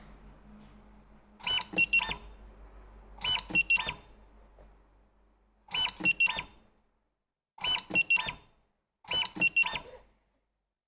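Five short bursts of electronic beeps mixed with sharp clicks, one about every two seconds, each burst made of a few quick high tones.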